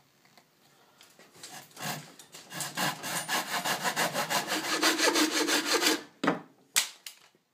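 Coping saw cutting a curve through a wooden board in rapid back-and-forth strokes that speed up and then stop as the cut is finished. A few sharp knocks follow near the end.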